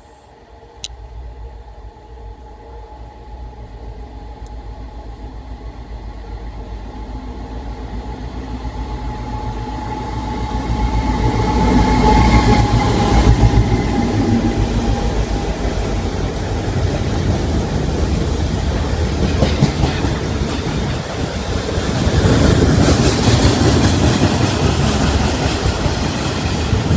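DB Cargo Class 60 diesel-electric locomotive 60062 approaching and passing at speed with a freight train, growing steadily louder for about twelve seconds until it goes by. It is followed by the wheels of loaded flat wagons running over the rails, louder again near the end.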